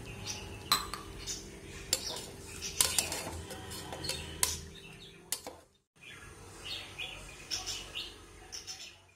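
Perforated steel skimmer ladle clinking and scraping against the inside of a metal pressure cooker while masala is stirred, with sharp clinks every second or so during the first five seconds.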